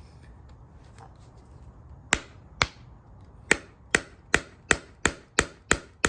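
Hammer striking the stamped-metal retaining piece on a 1972 Ford LTD window crank, about ten sharp, ringing blows starting about two seconds in and speeding up to about two and a half a second. The blows are meant to bend the lip around the washer until it breaks off and frees the knob.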